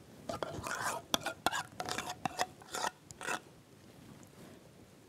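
A spoon scraping and tapping béchamel sauce out of a bowl onto a baking tray: a run of short scrapes and clicks that stops about three seconds in.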